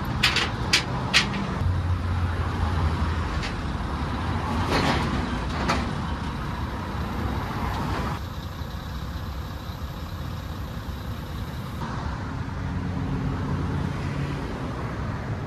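Vehicle engines and traffic on a busy road, a steady rumble with about four sharp knocks in the first second or so and two more around five seconds in.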